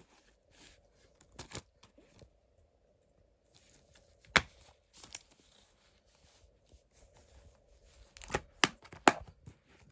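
Plastic Blu-ray case being handled and opened: soft scraping and rustling with sharp plastic clicks, one loud click about four seconds in and three more in quick succession near the end.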